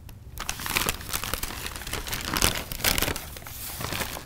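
A McDonald's paper takeout bag crinkling and rustling as it is handed over, opened and rummaged through, with irregular crackles throughout.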